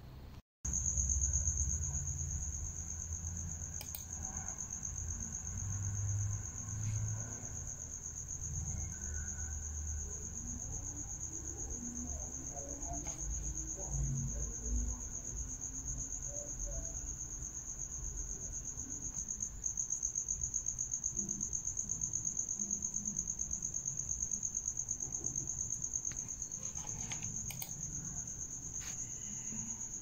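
A steady, unbroken high-pitched whine or trill, with a low rumble underneath through the first half.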